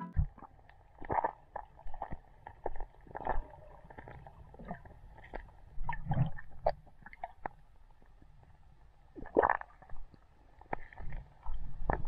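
Water sound picked up by a swimmer's camera held underwater: irregular clicks and knocks over a low rumble as the water moves around the camera, with louder bursts about six and nine and a half seconds in.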